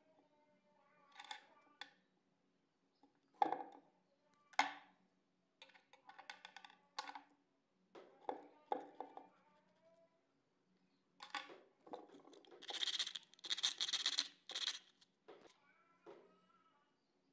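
Small plastic and metal parts being handled on a tabletop: scattered clicks, taps and rubbing, with a longer stretch of scraping and rustling about three-quarters of the way through.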